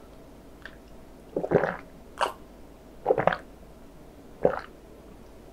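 Close-miked gulping as a person drinks an iced drink from a glass mug: four loud swallows, roughly a second apart.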